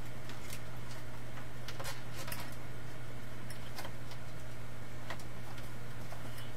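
Irregular light clicks and ticks of hands pressing and fitting an LED light strip along the top of a wall, over a steady low hum.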